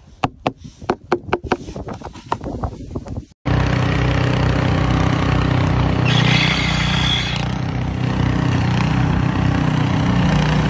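A snow brush sweeping snow off a car window in quick strokes, about three a second, for roughly three seconds. Then, after a cut, a snowblower's small gas engine running steadily as it is pushed through deep snow.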